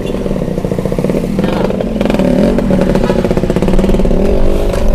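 Vehicle engines in traffic, heard from inside a car cabin, getting steadily louder as the car moves off, with a motorcycle passing close alongside near the end.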